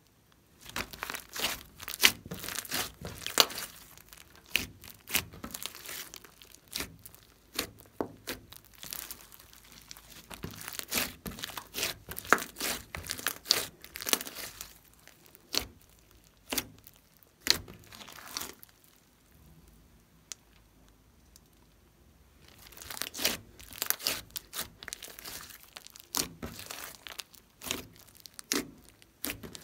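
Hands kneading, stretching and squeezing a large mass of glossy slime mixed with small bits, making a run of sticky crackles, pops and tearing sounds. The sound drops to a lull for a couple of seconds about two-thirds of the way through, then the crackling starts again.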